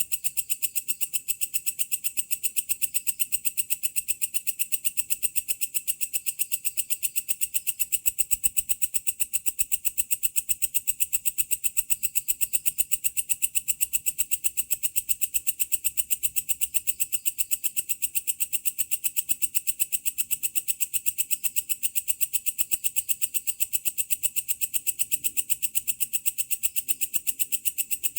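Belalang kecek (walang kerik) singing: a fast, even train of high, rasping chirps that runs on without a break.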